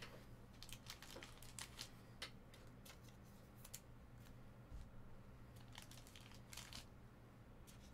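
Faint, scattered clicks and rustles of trading cards and their packaging being handled, over a low steady hum.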